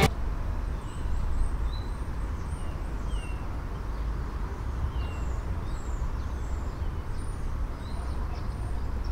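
Outdoor ambience: small birds chirping now and then, short high calls scattered through, over a steady low rumble.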